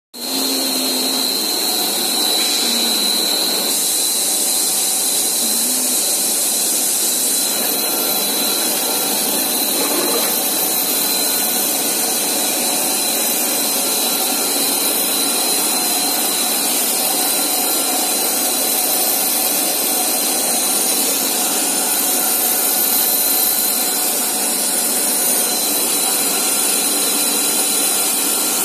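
Machinery of a plastic profile extrusion line running: a steady mechanical noise with a constant high whine.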